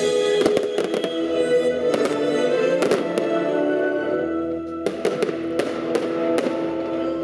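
Aerial fireworks going off in a string of sharp bangs over music with long held notes.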